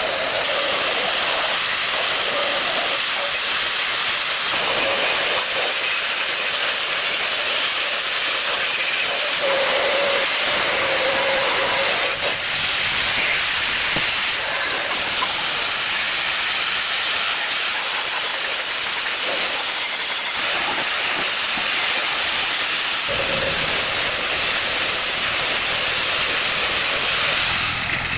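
A loud, steady hiss that runs on without a break, with a low rumble joining in about five seconds before the end.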